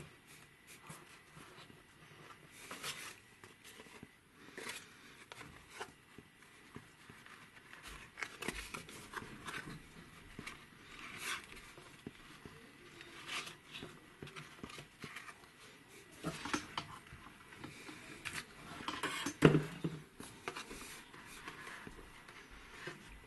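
Thin cardboard pattern pieces rustling and scraping as they are handled and pressed into place inside a felt-lined wooden case, with a louder knock about nineteen seconds in.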